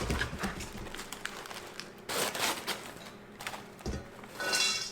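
Microwave popcorn being emptied from its paper bags into a metal bowl: the bags crinkle and rustle while popped kernels land with light scattered clicks, with two louder rustling surges, one about two seconds in and one near the end.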